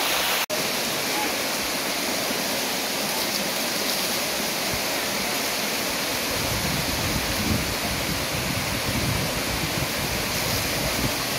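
Steady rushing of hot-spring water running over the travertine terraces and along the pool channels. From about six seconds in, a low rumble joins it, with a brief break in the sound about half a second in.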